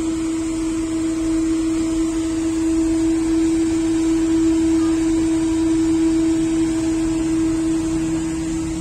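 Steady machine hum holding one constant tone, over an even hiss.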